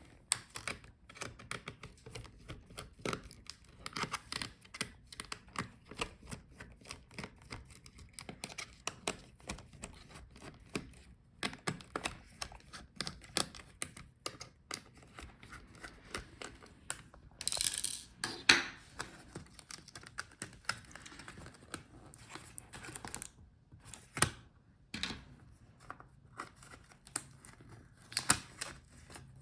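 Small irregular clicks and taps of a screwdriver working the tiny screws around a laptop's touchpad, with the screws and tools handled on the plastic palmrest. A louder scraping rustle comes a little over halfway through, and a few sharper clicks near the end.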